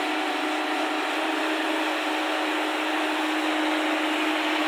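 JCB tracked excavator's diesel engine and hydraulics running steadily at working revs as the boom swings round, a continuous machine noise with a steady hum.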